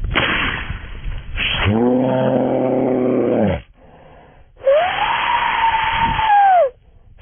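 Two shotgun shots about a second and a half apart from a double-barrelled shotgun, fired at a flushing quail. A man's long, drawn-out shouted command to the dog follows, then a high whistle that rises and falls.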